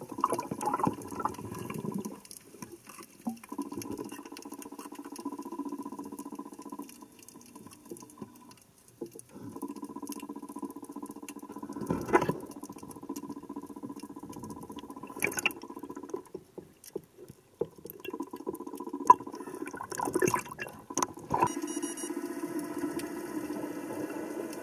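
Sound recorded underwater by a camera: a steady low hum with constant crackling and clicking. A few louder rushes of water break in, about 12, 15 and 20 seconds in.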